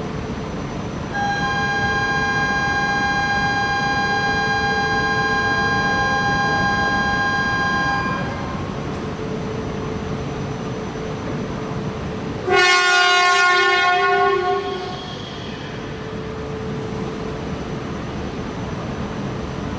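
A steady electronic tone sounds for about seven seconds. About four seconds after it stops, the E4 series Max Shinkansen gives one loud horn blast lasting about two seconds before it departs, over the steady hum of the standing train.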